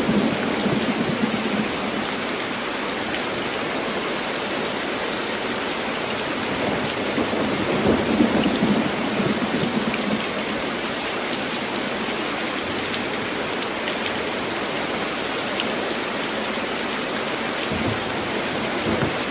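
Heavy rain falling steadily on a tin roof, with a swell of thunder right at the start and another about eight seconds in.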